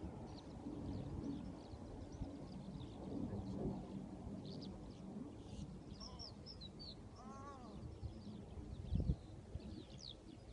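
Wind buffeting the microphone in an open field, with scattered small-bird chirps throughout. A short run of harsh, arching bird calls comes about seven seconds in, and a dull knock about nine seconds in.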